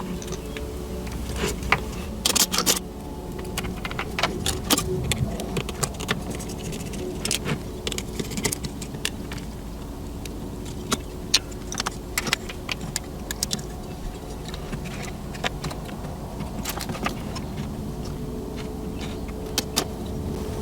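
Irregular small clicks, taps and rattles of hands handling and taking apart a plastic model railcar, over a steady background hum.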